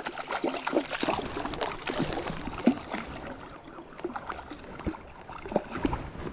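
Creek water splashing and dripping around a large brown trout in a landing net, mixed with irregular knocks and scraping of the net and clothing against a chest-mounted camera, one sharp knock about three seconds in.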